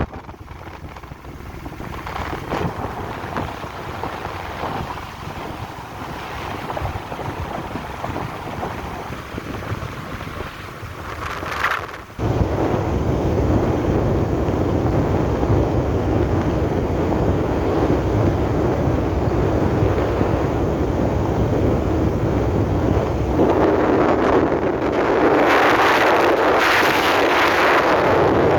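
Steady rumble and rushing noise of a moving vehicle, with wind buffeting the microphone. About twelve seconds in it suddenly gets much louder and stays so.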